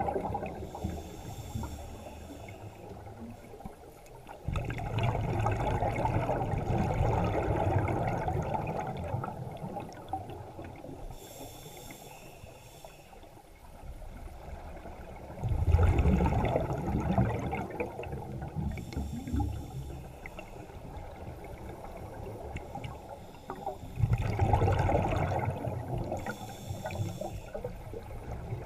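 Scuba diver breathing through a regulator, heard underwater: exhaled bubbles rush out in three long bursts about ten seconds apart, with a quieter hiss between them.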